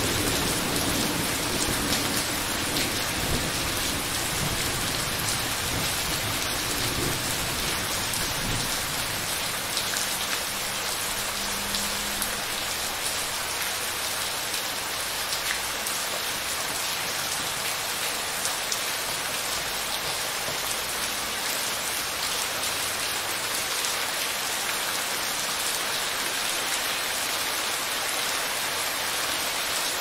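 Steady rain falling on a wet surface, with a rumble of thunder dying away over the first several seconds.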